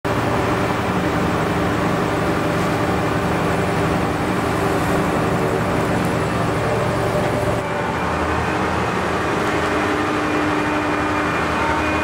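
Fendt Ideal 7T combine harvester running steadily, its engine and drives giving a continuous mechanical hum. The sound shifts abruptly about two-thirds of the way through and carries on as a similar steady machine noise.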